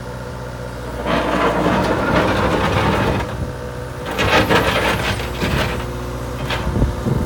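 CAT 277C skid steer's diesel engine running steadily, with two louder, rougher stretches of a few seconds each and a sharp knock near the end.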